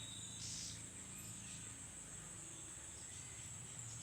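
Steady, high-pitched insect chirring, a faint outdoor chorus with a second higher-pitched buzz that cuts out briefly and comes back.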